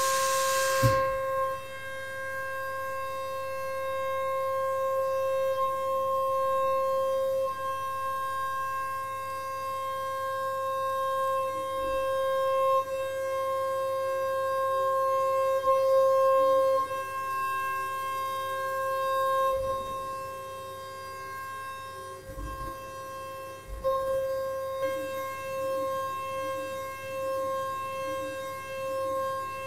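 DATRON MX Cube spindle milling aluminium with an 8 mm single-flute end mill at 32,000 rpm: a steady high whine at the cutter's once-per-revolution pitch, with its overtones. A hiss cuts off about a second in. Near the end the whine pulses as the tool circles a round pocket.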